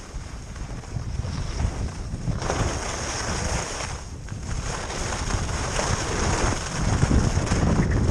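Wind buffeting the microphone of a skier's moving camera, with the hiss and scrape of skis running on hard-packed piste snow; the hiss steps up about two and a half seconds in and grows louder as speed builds.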